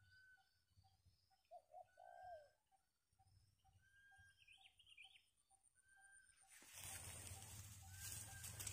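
Faint birds calling: a steady run of short low notes, about two or three a second, with a higher whistled note every second or so and a few chirps. About two-thirds of the way through, a louder rushing noise comes in and covers the birds.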